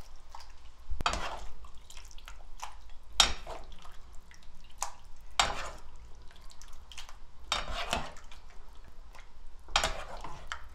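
A metal ladle scooping rice-cake soup from a pot and pouring it into a ceramic bowl, about five times at roughly two-second intervals: each scoop a clink against the pot followed by a short splash of broth.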